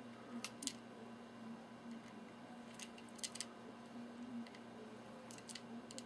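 Budgerigar bathing in a shallow water dish: faint short splashes and flicks of water in quick clusters, near the start, around the middle and near the end, as it dips in and shakes.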